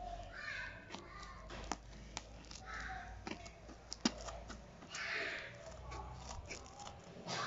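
A parcel's wrapping being cut and torn open, with scattered sharp clicks and snips and a few short bursts of rustling packaging.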